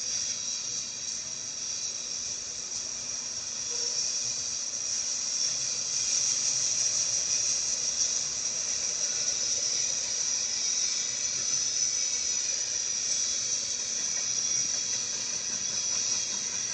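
Steady high hiss of a freight train's cars rolling past on the rails, growing slightly louder a few seconds in.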